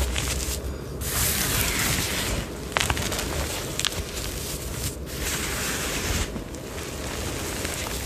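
Hands squeezing and crumbling a heap of powdered gym chalk: a soft, steady crunch and hiss of crushing powder, broken by a few short pauses.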